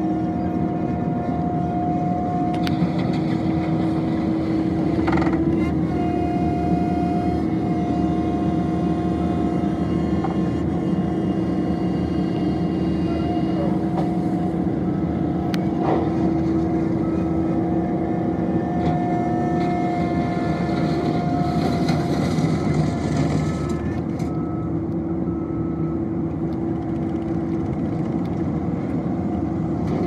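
Terex PT100 compact track loader's diesel engine running steadily under load, with a constant high tone over the engine hum as it drives and works gravel. A few sharp knocks about 5 and 16 seconds in, and a brief rush of hiss a little past the middle.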